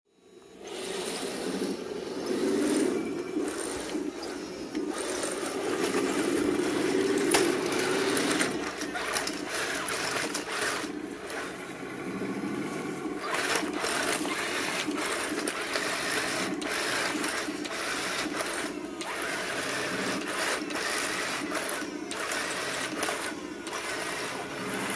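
Heng Long 1/16 scale M41 Walker Bulldog RC tank's small electric drive motors and gearboxes whining as it crawls over rocks, with tracks knocking on stone. It starts about half a second in and drops out briefly a few times.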